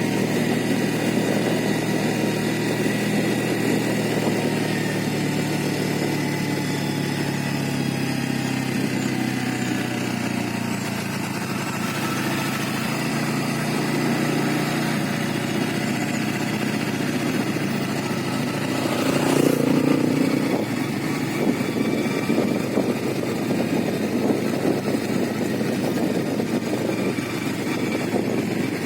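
Motor vehicle engine running steadily with road noise, with a short louder sound about two-thirds of the way through.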